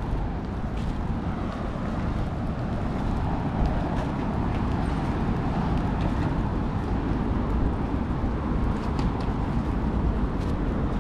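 Steady outdoor street noise: traffic on the surrounding roads, heard as a continuous low hum.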